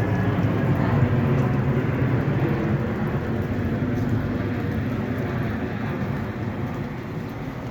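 A vehicle engine running with a steady low hum and road noise, slowly fading lower.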